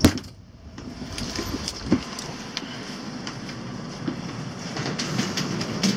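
Steady noise inside a KTT double-deck train carriage, with light clicks and rattles, as passengers carrying bags move down the aisle. A sharp knock comes right at the start and another about two seconds in.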